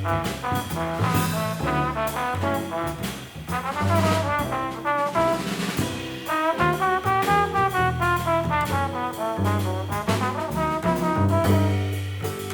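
Small jazz group of trombone, guitar, bass and drums playing. The trombone carries a flowing melody with smooth glides over walking bass notes and cymbals.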